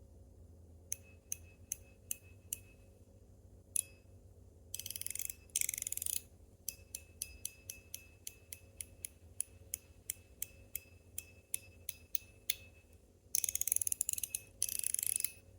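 Titanium-alloy fidget slider worked back and forth by hand: sharp metal clicks as it snaps along its track, at times in a quick run of several clicks a second, with a few short stretches of rasping slide noise between them.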